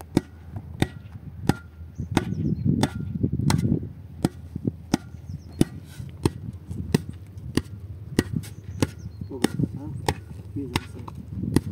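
A hand tool struck over and over at a steady pace, about three blows every two seconds, each blow with a short ring. A low steady hum runs underneath.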